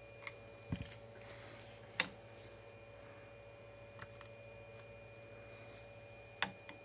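Scattered sharp clicks and taps of small hard laptop parts and tools being handled during disassembly. There are about six, the loudest about two seconds in and another near the end.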